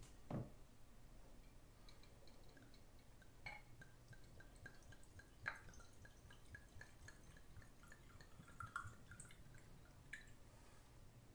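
Water trickling faintly from a tipped glass bottle into a small hanging glass jar, heard as a quick run of drips, with a few light clicks.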